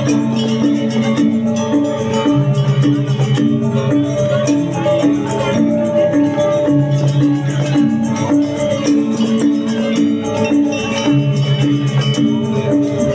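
Gamelan ensemble playing a tabuh, an instrumental piece: pitched percussion sounding quick, evenly pulsing repeated notes over a lower repeating line.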